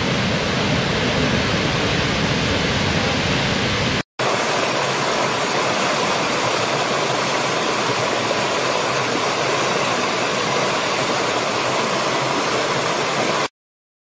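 Steady rush of a large waterfall, with plenty of low rumble. About four seconds in, after a brief dropout, it changes to the lighter, higher-pitched rushing of a small stream cascading over rocks, which cuts off suddenly near the end.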